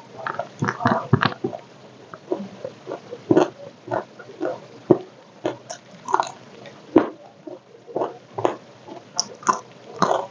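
A person chewing and crunching crispy fried food close up: irregular crunches, a few a second.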